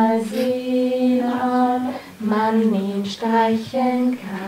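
A woman singing a slow, simple children's stroking song for baby massage, holding long, even notes, with a short pause about halfway through.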